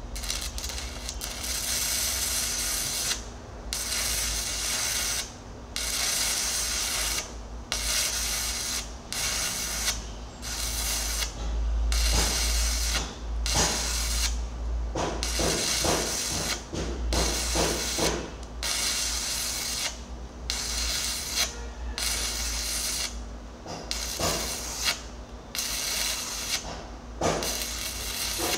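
Electric arc welding on an excavator bucket's teeth: the arc crackling and sizzling in runs of one to two seconds, broken by short pauses as the arc is stopped and struck again.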